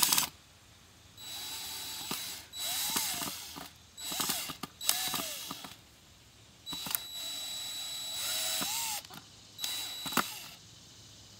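Cordless drill driving screws into a wooden log perch. It runs in about six short bursts of a second or two each, with pauses between them as the trigger is squeezed and released.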